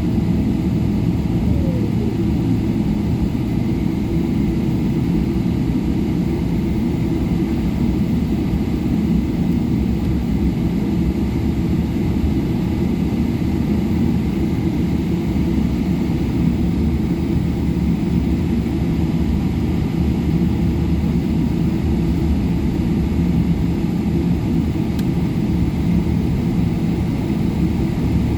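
Steady low rumble of cabin noise inside a Boeing 777-200LR on the ground after landing, with a faint tone sliding downward about a second in.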